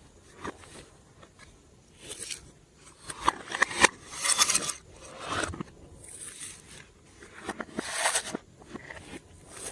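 Hands kneading and stretching glossy slime, making sticky crackles and clicks that come in irregular bursts about once a second.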